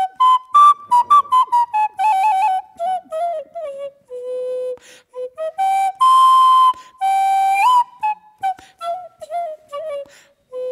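Small wooden end-blown flute played solo: a folk tune of quick notes with trills, two long held high notes in the middle, the second bending up at its end, then a falling run of short notes near the end.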